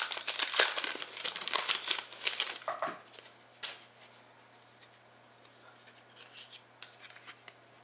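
Card pack wrapper being torn open and crinkled for about three seconds, then quieter rustling and light clicks as the cards are handled.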